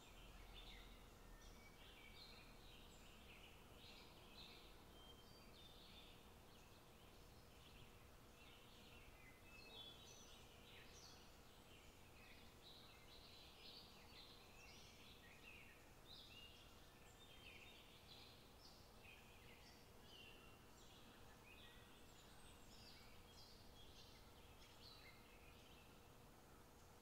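Faint birdsong: many small birds chirping and twittering continuously, in short quick notes.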